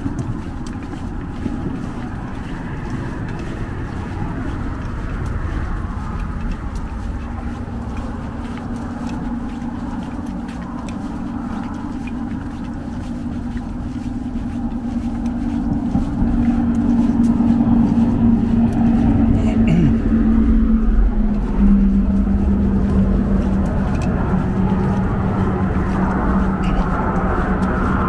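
Road traffic running across the bridge deck beside the walkway: a steady rush of passing vehicles with a sustained hum that grows louder about halfway through and drops a little in pitch a few seconds later.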